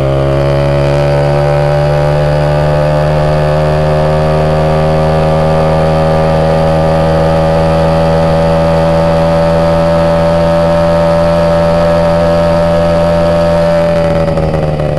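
Moped engine running steadily under way, its pitch holding level and then falling away near the end as the bike slows.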